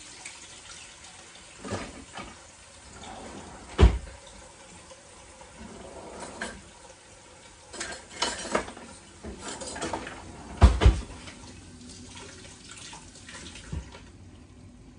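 Kitchen utensils clattering and knocking as a drawer full of them is rummaged, with two louder knocks about four and eleven seconds in, over a steady background hiss.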